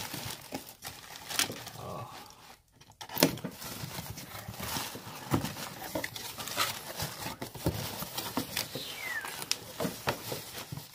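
Bubble wrap and plastic packing crinkling and a cardboard shipping box rustling as a package is unpacked by hand, in irregular crackles and small knocks, with a brief pause about two and a half seconds in.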